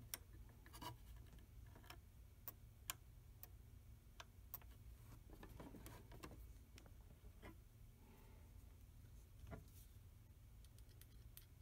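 Near silence: faint room hum with a few scattered, irregular faint clicks.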